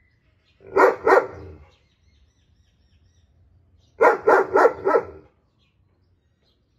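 German shepherd barking loudly to another dog: two quick barks about a second in, then a run of four barks about four seconds in.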